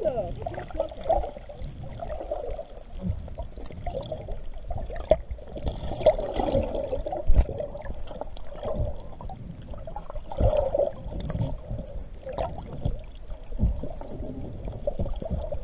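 Muffled water sloshing and splashing close to the microphone, with irregular low knocks.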